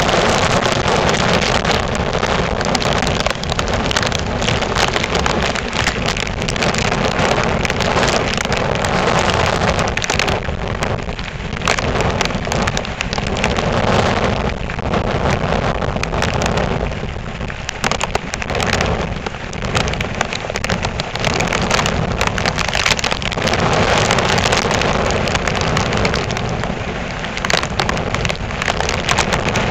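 Loud, unbroken hurricane storm noise: wind and rain over heavy breaking surf, swelling and easing every few seconds in gusts.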